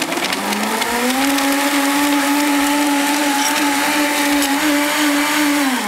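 Sencor countertop blender running on its smoothie setting, blending a liquid drink: the motor whine rises in pitch as it spins up over the first second, holds steady, then winds down near the end.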